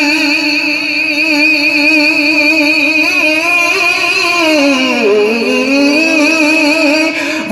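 A man singing a gazal into a microphone, holding one long wavering note whose pitch slides down about four seconds in and climbs back.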